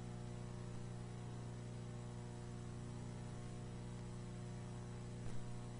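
Steady low electrical hum with a hiss over it, and one brief click near the end.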